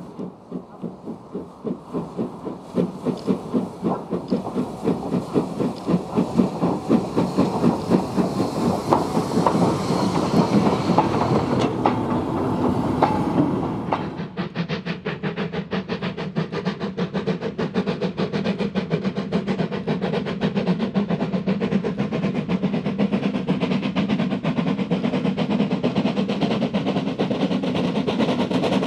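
Steam locomotive exhaust beats that get faster and louder as the engine works hard, with steam hiss above them. About halfway through the sound changes abruptly to a quicker, steadier run of beats with less hiss.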